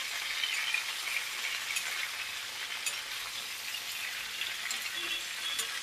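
Cauliflower florets and potato chunks sizzling steadily as they fry in hot oil in a kadhai, with occasional clicks of a spoon as they are stirred.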